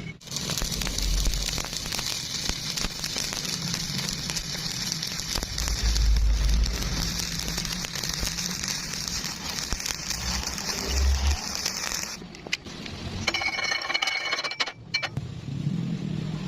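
Electric arc welding: a steady crackling hiss full of fine sputtering clicks that cuts off about twelve seconds in. A shorter, different sound with a few steady tones follows near the end.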